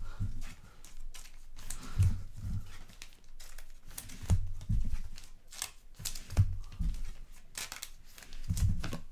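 Trading cards being slid into thin plastic sleeves: crinkling, rustling plastic, with several dull knocks of handling on the table.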